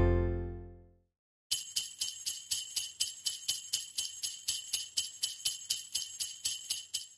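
Jingle bells shaken in a steady rhythm, about four shakes a second, growing fainter near the end. The last notes of an acoustic guitar tune die away just before the bells start.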